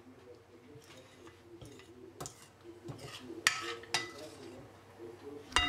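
Metal spoon scraping and clinking against a glass bowl as it stirs a half-frozen chocolate ice cream mixture, breaking up the ice crystals. A handful of scrapes come in the second half.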